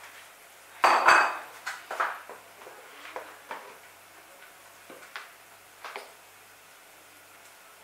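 A metal serving spoon clinks and knocks against a non-stick pot as cooked rice is spooned in to layer a biriani. There is a loud burst of clatter about a second in, then lighter scattered clinks that die away after about six seconds.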